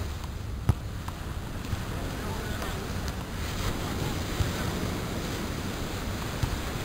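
Steady wind noise on the microphone over ocean surf, with a single sharp knock just under a second in.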